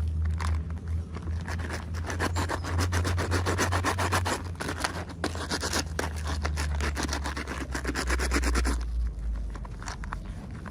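Packaging being rubbed and crinkled by hand while a toy is unboxed: a dense, fast crackle that stops suddenly near the end, over a steady low hum.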